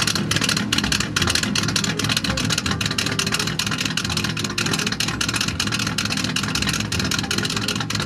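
Straight-piped Buick engine idling at the open exhaust tip: a steady, rapid run of even exhaust pulses.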